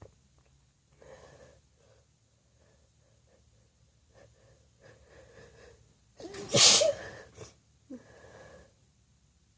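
A woman's short catching breaths building up to one loud sneeze about six seconds in, followed by another breath.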